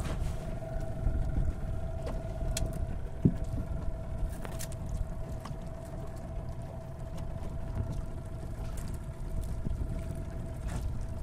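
Ambience on an open fishing boat at sea: a low rumble of wind and water with a steady hum and a few faint clicks.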